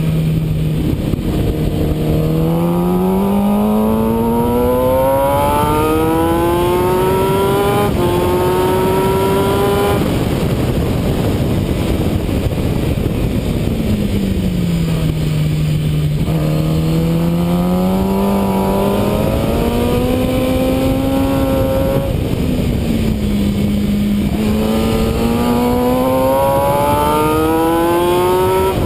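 Motorcycle engine under hard acceleration on a racetrack, its note climbing and dropping suddenly at each upshift. It falls away for several seconds around the middle as the bike slows, then climbs again twice. Heavy wind rush on the microphone runs under it.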